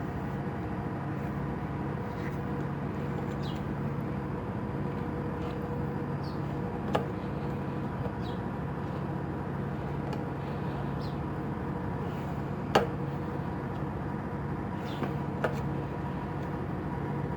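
Car engine idling steadily, with a few light clicks or knocks over it, the loudest about two-thirds of the way through.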